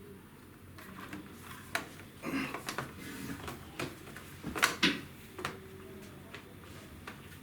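Scattered sharp clicks and knocks with short scrapes, as hands handle the plastic and metal parts of an open laptop during a RAM upgrade. The loudest are two clicks close together a little past halfway.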